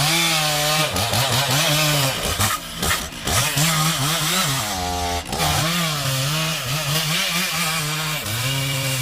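Stihl MS 660 two-stroke chainsaw cutting into a large tree trunk at full throttle. Its engine pitch dips again and again as the chain bogs in the wood, then climbs back.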